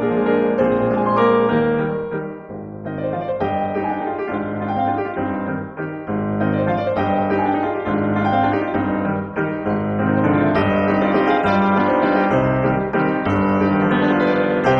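Background piano music, a slow melody over sustained chords.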